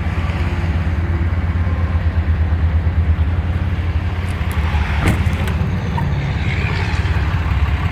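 A truck engine idling steadily, a deep even hum, with a short click about five seconds in.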